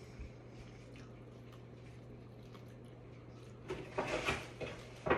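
Someone eating corn close to the microphone: faint chewing and small mouth clicks, then a burst of louder biting and chewing about four seconds in, over a steady low hum.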